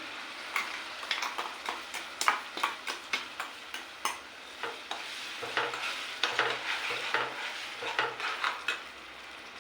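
Tomato paste sizzling in hot oil with browned onions in a pan while a utensil is stirred through it, scraping and knocking against the pan every fraction of a second. The clicks stop shortly before the end, leaving only the steady sizzle.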